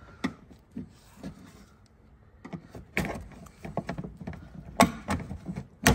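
Plastic wiper cowl panel being pried up, its clips popping loose with sharp plastic clicks and knocks. A few faint clicks at first, then a run of louder clicks and knocks from about halfway, the loudest near the halfway point, near the end, and right at the end.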